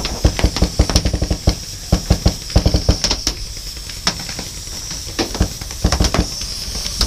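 Paintball guns firing in rapid bursts of sharp pops, with paintballs smacking nearby, over a steady hiss.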